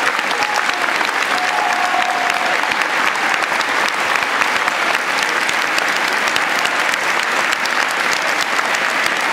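A large audience applauding steadily: dense, continuous clapping from many hands, with the odd voice calling out over it.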